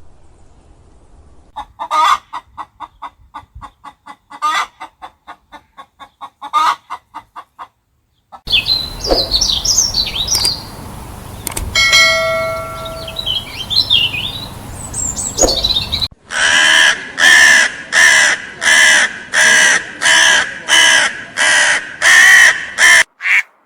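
Animal calls in three back-to-back clips: a run of quick calls, then chirping bird calls with a brief clear tone in the middle, then a loud series of evenly spaced calls, about two a second, in the second half.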